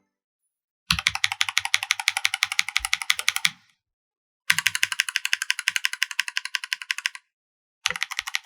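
Rapid typing on tactile mechanical keyboard switches (Lumia and Glorious Holy Panda) in a switch sound test: three runs of quick, sharp clacks, each lasting a few seconds, with short silent breaks between them. The Lumias are the more high-pitched on stock.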